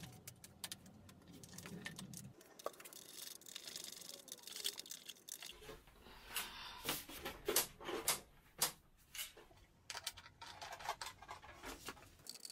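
Faint, scattered clicks, taps and scrapes of a plastic front mudguard being handled and fitted to a small motocross bike. The taps come more often about six to eight seconds in.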